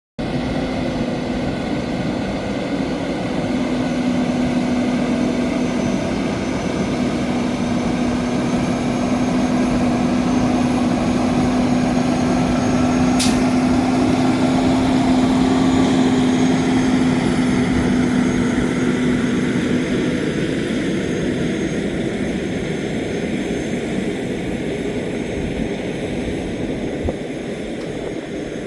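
Heavy truck's diesel engine running with road and tyre noise, a steady drone with a low hum that fades out about two-thirds of the way through. A brief high click sounds near the middle.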